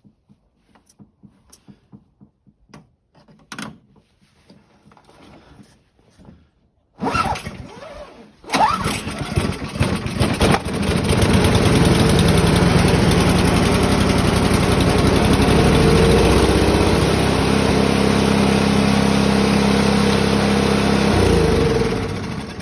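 Scattered light clicks and taps, then the Briggs & Stratton four-stroke engine of a Craftsman snowblower turns over briefly about seven seconds in, catches a second or so later and runs steadily. Near the end it winds down and stops. It runs now that its clogged carburetor has been cleaned.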